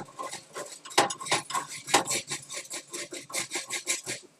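Dry chickpeas being toasted in a pan and stirred with a utensil: a quick, irregular run of clicks and rattles.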